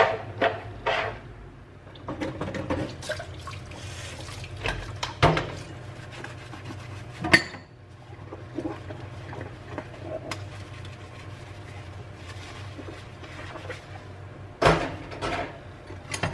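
Dishes being hand-washed in a stainless steel sink: glass and ceramic bowls and cups clinking and knocking against each other and the sink, with water running and splashing at times.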